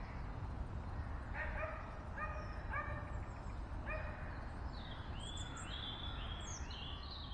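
A shallow stream running, with a dog giving several short barks in the first half. A run of high bird chirps follows near the end.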